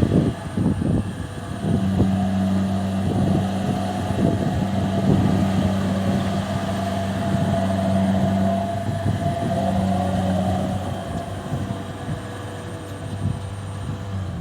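Engine of a rice harvesting machine running steadily, with a higher whine above it, easing off a little in the last few seconds.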